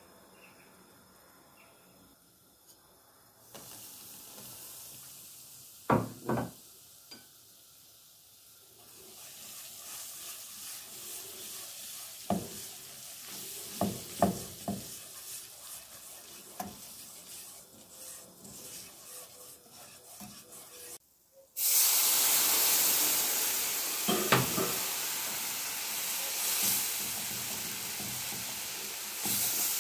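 Flour sizzling in hot oil in a nonstick pan while a whisk stirs it, with scattered knocks of the whisk on the pan. About two-thirds through, the sizzle jumps suddenly much louder as liquid goes into the hot roux and is whisked continuously.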